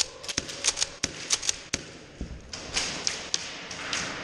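Airsoft guns firing single shots in quick, irregular succession: about a dozen sharp cracks, thickest in the first two seconds, with softer ones after.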